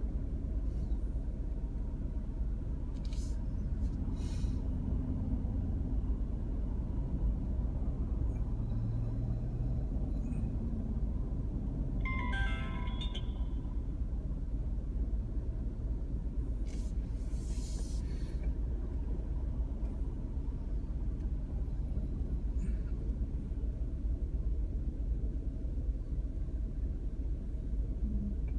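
Steady low road and engine rumble of a car driving, heard from inside the cabin. A brief high-pitched tone sounds about twelve seconds in, and a short hiss comes around seventeen seconds.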